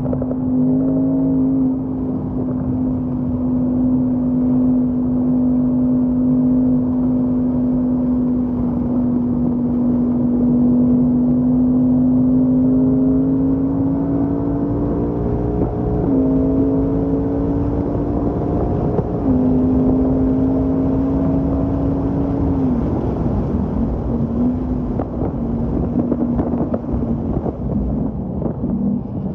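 Ford Mustang Mach 1's 5.0-litre V8, heard from inside the cabin while driven on track: a steady engine drone that climbs slowly in pitch, steps a little twice past the halfway point, then drops lower about three-quarters of the way in, with rougher road and tyre noise after.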